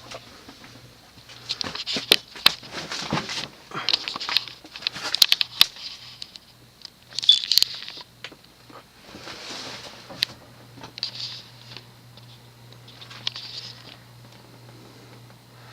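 Kenroy Casbah Deluxe ceiling fan's cast-iron motor humming steadily at medium speed, with irregular clicks, taps and short rustles over it, mostly in the first half.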